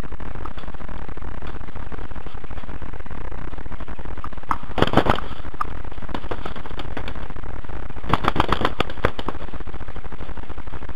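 Steady electrical buzz from a helmet camera's microphone. Over it come two quick bursts of sharp pops, typical of paintball marker fire: a few shots about five seconds in, and a longer string of about seven shots a little after eight seconds.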